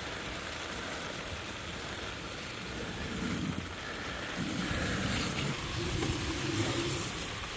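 Steady rain falling, with louder low noises coming and going in the second half.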